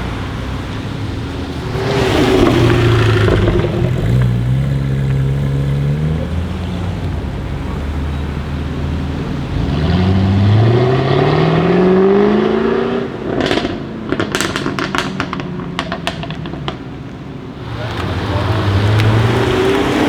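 Jaguar F-Type V8 R's 5.0-litre supercharged V8 accelerating hard, its pitch rising, more than once. After the second pull comes a run of sharp exhaust crackles and pops as the throttle is released, and near the end the engine pulls up again.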